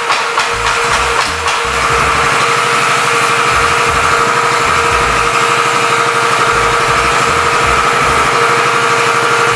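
Small petrol engine of a Samsan SM 201 road scarifier idling just after starting, warming up on the choke. It runs a little unevenly for the first second or so, then settles into a steady idle.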